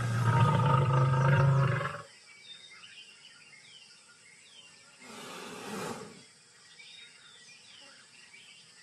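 Lioness growling, a loud, low, rasping growl that stops about two seconds in. After it there are faint bird chirps and a brief noisy burst about five seconds in.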